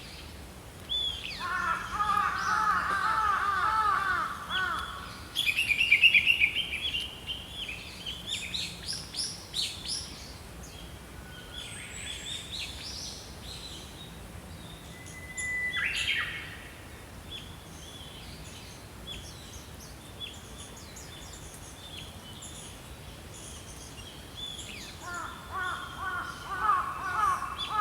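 Wild birds of several kinds calling and singing over a steady outdoor hiss. A run of repeated, arching call notes comes early and again near the end, with quick high chirping trills and a short whistle in between.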